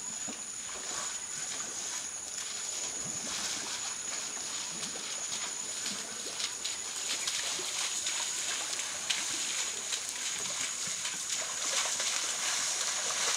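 African forest elephants' feet sloshing and splashing through shallow muddy water, many short squelches and splashes, growing louder and more frequent after the middle. A steady high-pitched whine runs underneath.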